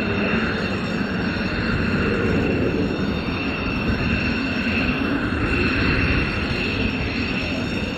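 Two F-16 fighter jets' F100 turbofan engines running at low power as they taxi: a steady rumble with a constant high whine over it.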